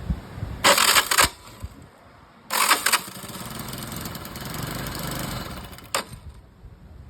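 Motorcycle starter motor engaged in two short, harsh grinding bursts, followed by a few seconds of steadier mechanical running and a sharp click. The abnormal grinding noise comes from gears worn because the motor's O-ring was not removed.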